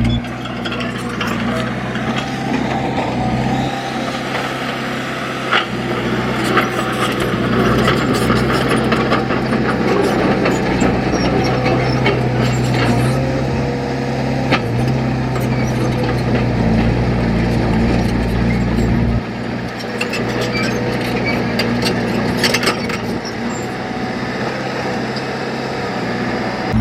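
Diesel engine of a heavy earthmoving machine running steadily under work, with scattered sharp metal knocks and clanks.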